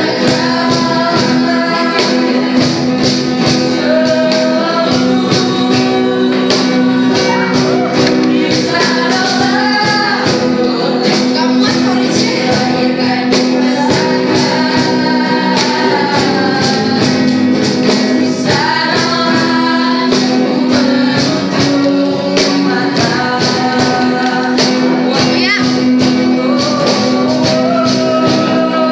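A song performed live by a small student band: a group of voices singing, one of them through a microphone, over guitars, with a steady percussion beat.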